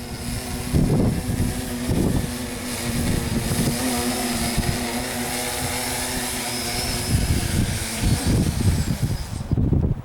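Scratch-built tricopter's electric motors and propellers buzzing steadily in flight, with gusts of wind buffeting the microphone.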